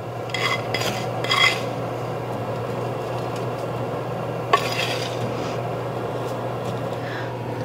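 A utensil scraping and clinking against a pan while buttered, toasted breadcrumbs are spread over mac and cheese. There are a few scrapes near the start and one sharp clink about halfway through, over a steady low hum.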